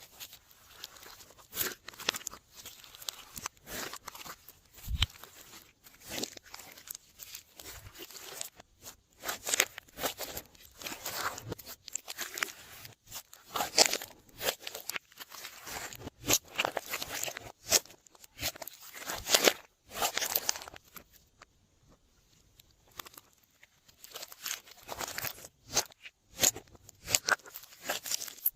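Glossy slime being handled and squeezed, making irregular sticky clicks and squelches that come in uneven bursts. There is a brief lull about three-quarters of the way through.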